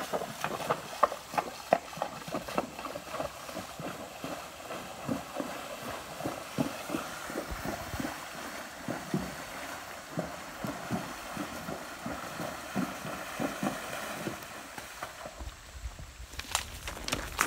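Spotted Saddle horse's hooves splashing through a shallow, rocky creek: a steady, uneven run of splashes, a few a second. The splashing stops near the end as the horse climbs out onto the bank.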